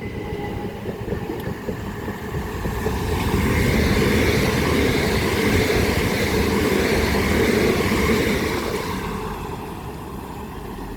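A Southeastern Electrostar electric train passing through at speed. The rail and motor noise builds over the first few seconds, is loudest through the middle, then fades away near the end.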